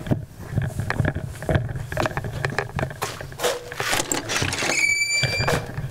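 Footsteps across a porch, about two a second, then a glass-paned French door being opened, with a short high squeak near the end.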